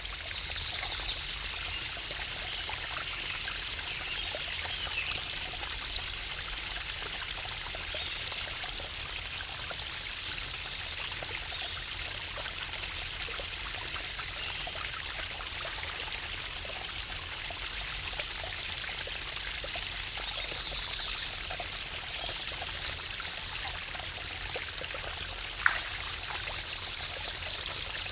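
Waterfall rushing steadily, with short high bird calls now and then. A single sharp tick about three-quarters of the way through is the loudest moment.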